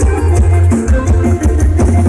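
Live band music played loud through a Thai parade sound truck's speaker system, with a heavy bass line and percussion under a melody.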